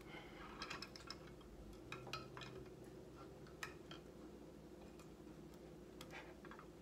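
Faint, scattered light clicks and taps as copper wires are handled and positioned by hand, over a steady low hum.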